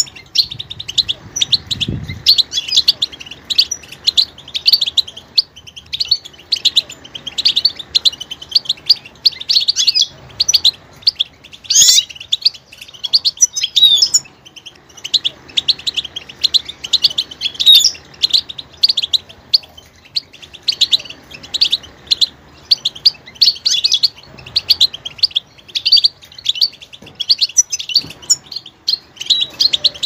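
European goldfinch singing a fast, high twittering song of rapid chirps and trills, broken by a few short pauses.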